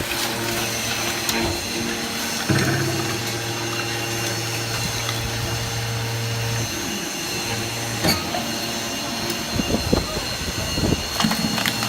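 Automatic scrap aluminium can baler running: a steady low motor hum that grows stronger about two and a half seconds in, eases back past six seconds and stops, followed by a run of metallic clicks and knocks near the end.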